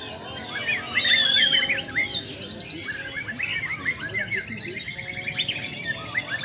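White-rumped shama singing: a fast run of varied whistles, chirps and trills. A loud whistled phrase comes about a second in, and a quick high trill comes near the middle.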